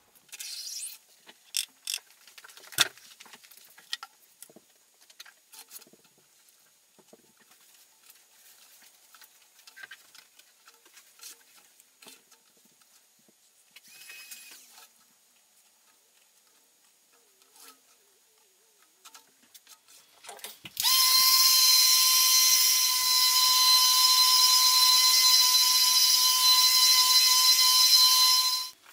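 Scattered clicks and knocks as the wooden silk-screen frame and its hinge clamp are handled, then, about twenty seconds in, a handheld electric hair dryer switches on and runs steadily, a rush of air with a steady motor whine, drying the screen, until it cuts off suddenly near the end.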